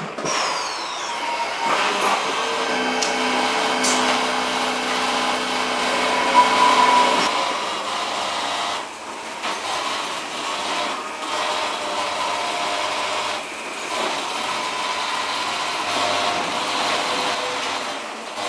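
Lely Astronaut A4 robotic milking machine at work: a steady mechanical whir from its arm motors and spinning teat-cleaning brushes, with scattered clicks. A lower motor hum comes in about three seconds in and stops a few seconds later.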